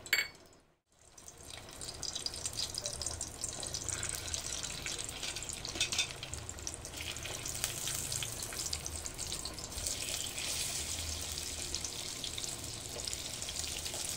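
Hot oil sizzling and crackling steadily in an aluminium pot as thread-tied, masala-stuffed crabs fry in it, with a few louder pops as crabs are laid in. A short click and about a second's gap come at the start, before the sizzling sets in.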